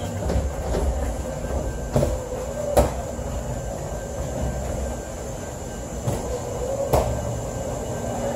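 Hollow rumble of footsteps on a jet bridge's floor as people walk down it toward the aircraft door, over a steady hum. A few sharp clunks come about two, three and seven seconds in, the loudest about three seconds in.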